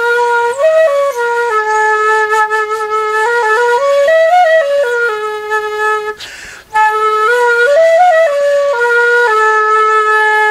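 Plastic danso (Korean vertical notched flute) playing a short melody. It holds a note, climbs to higher notes and comes back down, takes a quick audible breath about six seconds in, then plays the same rise and fall again and ends on a long held note.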